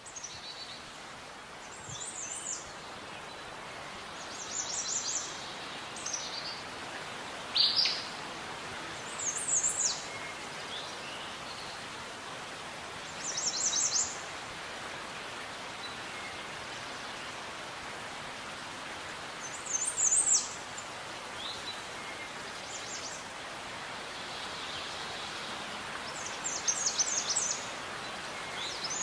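Birds calling in short high chirps and trills every few seconds over a steady outdoor hiss.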